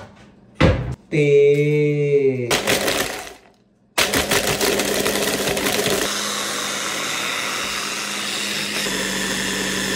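An electric blender starts about four seconds in and runs steadily, whipping instant coffee, milk and ice. Before it there is a sharp knock and a short drawn-out vocal sound.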